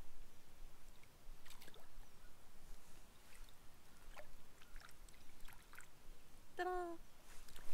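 Faint splashing and lapping of shallow lake water as a small bass is released at the shoreline, with scattered small ticks. A brief pitched call sounds near the end.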